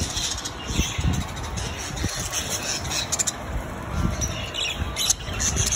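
A cageful of budgerigars chirping and twittering all at once, many short high calls overlapping, over a low rumble.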